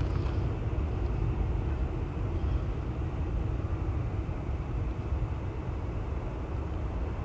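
Jet engines of an Airbus A321-200 airliner on the runway, a steady low rumble heard from a distance.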